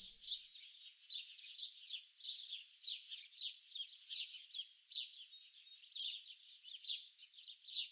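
Small songbirds chirping: a continuous chorus of quick, high, downward-sliding notes, several a second.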